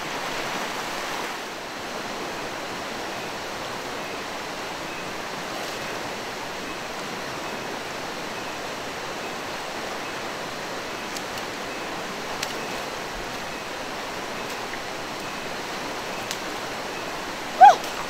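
Steady rush of a swollen, fast-flowing river tumbling over rocks and rapids, running high after heavy rain. Near the end a woman gives a brief exclamation.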